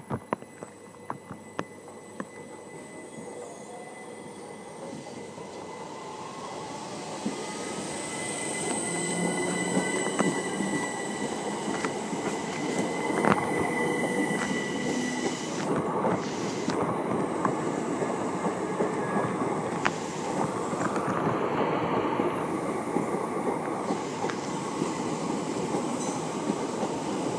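Electric multiple-unit train running at the station, growing steadily louder over the first ten seconds and then holding, with a whine that rises in pitch and a high, steady squeal from the wheels. A few sharp clicks sound at the start.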